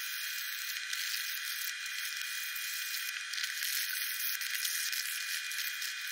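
500-grit sandpaper rubbed by hand over the aluminium side cover of a Suzuki GS850 engine, a steady scratchy hiss, sanding out deep scratches before polishing.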